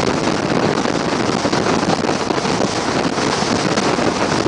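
Steady rush of wind buffeting the microphone on a motorboat running at speed, mixed with the churning of its wake.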